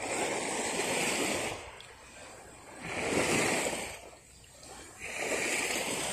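Small waves in shallow water washing in and out, swelling three times about two seconds apart.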